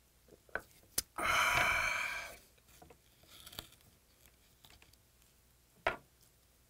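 A sharp click, then a loud, raspy breath of about a second that fades out, the 'kha' exhale after swallowing a shot of soju. A few faint handling sounds follow, then a sharp tap near the end.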